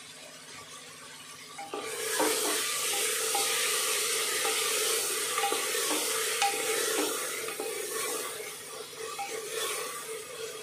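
Sliced tomatoes sizzling in hot oil in an aluminium pressure cooker while a wooden spatula stirs and scrapes them around the pan. The sizzle starts about two seconds in, when the stirring begins, and eases off toward the end. This is the tomato-frying stage of the pulao masala, salted so the tomatoes soften quickly.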